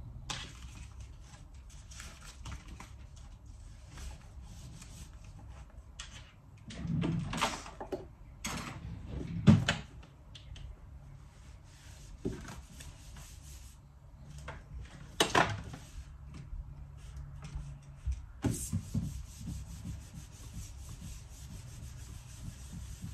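Cloth wiping dust off a furniture surface in irregular rubbing strokes, with a few louder bumps and scrapes as things on it are moved.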